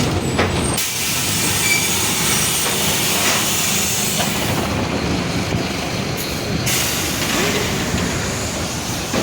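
Mercedes-Benz OF-1721 BlueTec 5 city bus running, heard from on board: steady engine and road noise, with a loud hissing rush that comes in about a second in and drops away at about seven seconds.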